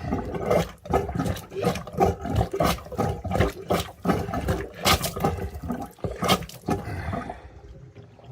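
Plastic sink plunger pumped hard in a clogged, water-filled sink, about two strokes a second, each sloshing and forcing water through the drain as the clog is punched through. The pumping stops near the end.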